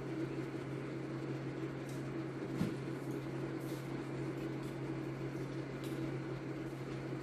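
Steady low hum of a household appliance, with a few faint clicks and scrapes of a plastic spoon in a paper cup and soft eating sounds.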